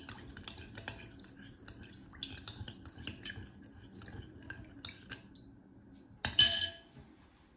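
A metal spoon stirring a wet batter in a glass bowl, clicking and scraping against the glass several times a second. About six seconds in there is one louder clatter of the spoon against the bowl.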